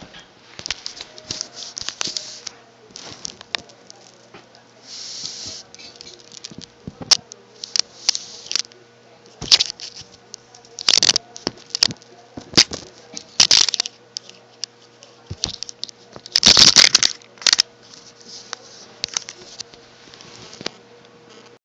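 Irregular rustling and clicking of a pearl necklace dragged and jostled over a fabric bedspread as a cat paws at it, close to the microphone, with a faint steady hum underneath. The loudest rustle comes a little past two-thirds of the way in.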